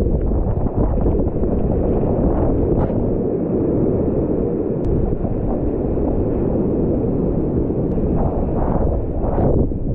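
Whitewater rapids rushing steadily around a kayak running them, with splashing on the microphone and paddle strokes; a few louder splashes near the end.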